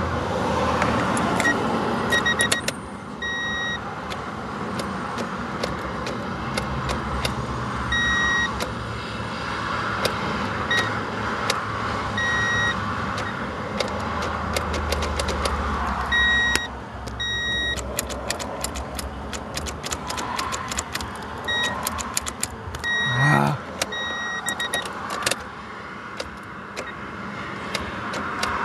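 A 1990 Honda Accord failing to start on a flat battery: bursts of rapid clicking, densest past the middle, with short repeated beeps and a brief low rumble in between.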